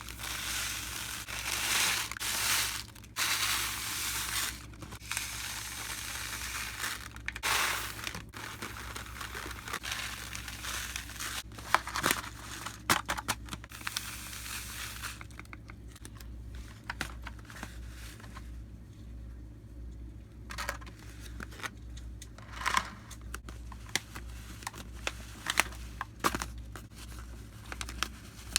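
Plastic packaging crinkling and rustling as it is handled, dense for the first fifteen seconds or so, then in scattered crackles.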